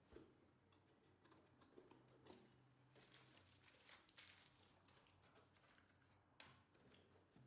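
Faint handling noise from a cardboard box being opened and its packed contents rustled and shifted by hand: soft scrapes, light knocks and a stretch of rustling about three to four seconds in.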